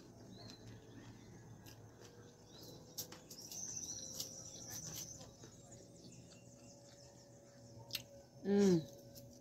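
Quiet eating: a metal fork clicking and scraping on a foil-lined tray of fries, with soft chewing. A thin high chirping whistle runs for about two seconds in the middle, and a brief voice sounds near the end.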